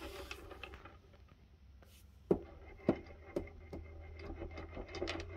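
Light clicks and rattles of cat treats knocking around inside an Outward Hound Wobble Bowl puzzle feeder's plastic maze as it is rocked and handled by hand, with two sharper clicks near the middle.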